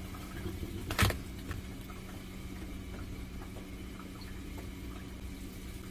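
Kitchen background: a steady low hum with one sharp knock about a second in and a few faint light ticks.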